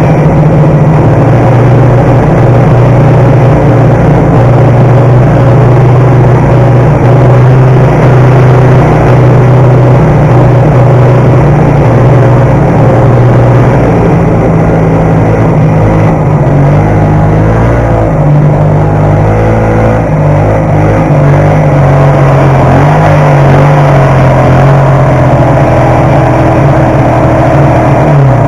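1972 Ski-Doo TNT 440 snowmobile's two-stroke twin engine running loud under way, steady at first, then its pitch rising and falling with the throttle in the second half.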